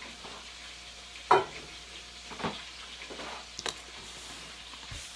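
Ribs frying in a pan with a steady low sizzle, broken by a few sharp knocks of kitchenware being handled, the loudest a little over a second in.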